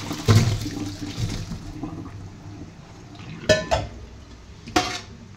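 Hot water and blanched cauliflower florets poured from a steel pot into a stainless steel colander in a sink, the splashing dying away over the first two seconds as the water drains. Then a few sharp clinks of steel: two close together past the middle and one near the end.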